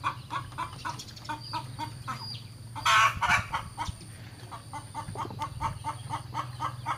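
Chickens clucking in a rapid run of short calls, about three to four a second, with one louder, harsher burst about three seconds in. A steady low hum runs underneath.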